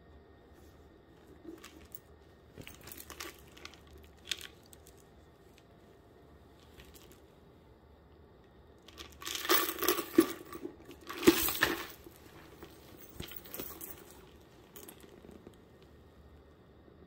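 A clear PVC crossbody bag with a metal chain strap being handled, making scattered crinkling and rustling of the stiff plastic. The loudest handling comes in a burst from about nine to twelve seconds in.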